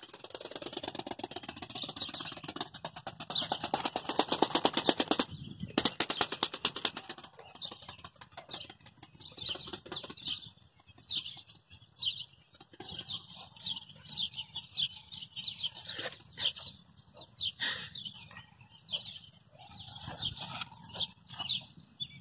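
Rubber-powered Flex model ornithopter flapping its wings in flight: a very fast, even flutter of wing beats that breaks off briefly about five seconds in, resumes, and stops after about seven seconds. After that there are only scattered rustles and knocks.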